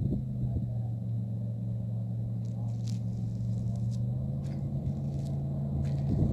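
Jet boat engines running at a steady low drone that holds one pitch, with a few faint clicks.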